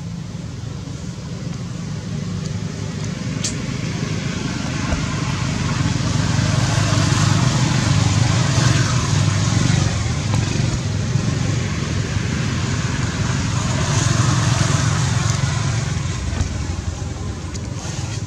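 Road traffic with engine rumble and tyre noise, swelling as vehicles pass about a third of the way in and again later.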